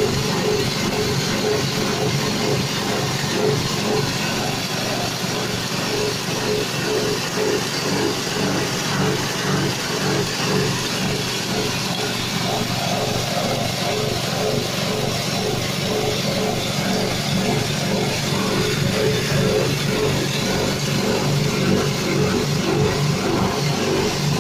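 Corn grinding mill driven by a 6.5 hp petrol engine, running steadily while it grinds corn into fine meal. The engine's even hum is mixed with the rushing noise of the grinding chamber.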